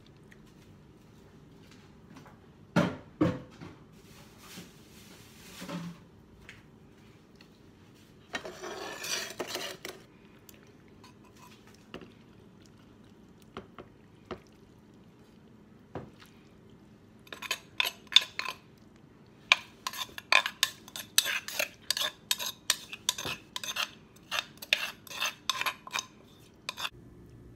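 Metal spoon clinking and scraping against a clay mortar as papaya salad is stirred and then scraped out onto a plate: a couple of sharp knocks about three seconds in, then a long run of rapid clicks and scrapes through the last ten seconds.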